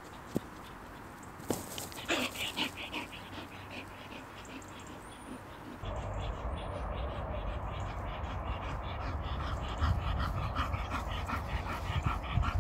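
Bull terrier panting in short repeated breaths while fetching a stick, with a low rumble behind it from about six seconds in.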